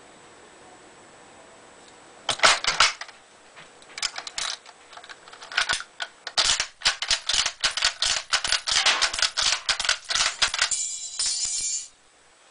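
1916 M91 Carcano long rifle being loaded with an en-bloc clip of cartridges and its bolt worked to cycle the rounds through the action: sharp metallic clicks and clacks starting about two seconds in, growing into a fast, steady clatter, with a busier rattle near the end.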